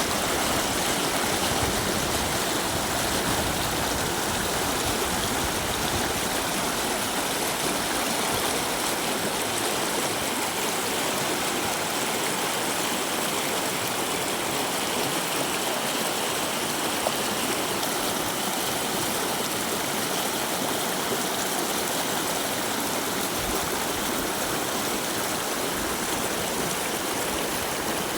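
River water flowing, a steady, even sound of running water.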